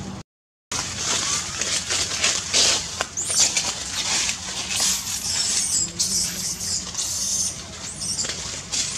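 Baby long-tailed macaque giving high squeals several times, over the rustle and crackle of leaves and branches as it climbs. The sound drops out for a moment near the start.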